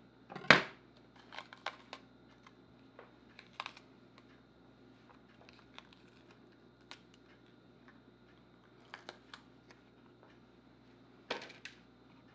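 Knife cutting a green bell pepper on a wooden cutting board: one sharp knock about half a second in, then scattered light taps, clicks and crackles as the crisp pepper is cut and pulled apart by hand.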